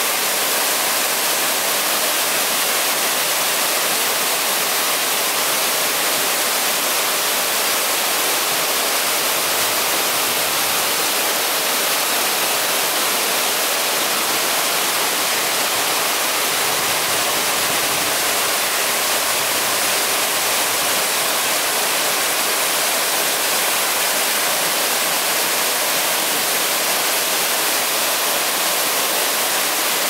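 Small waterfall plunging into a rock pool: a steady, unbroken rush of falling water, bright and hissy with little low rumble.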